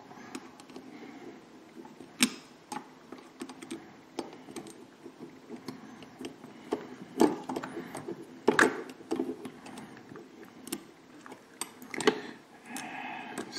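Scattered small clicks and taps of a screwdriver and a small screw being worked into a plastic model-car suspension mount, with light handling rustle of the plastic parts.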